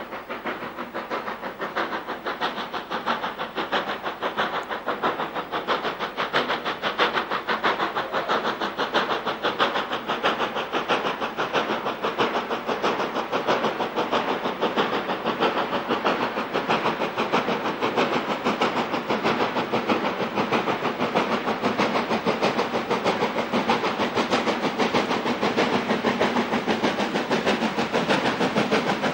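WD Austerity 2-10-0 steam locomotive working hard as it approaches, its exhaust beats coming fast and steady and growing slightly louder toward the end.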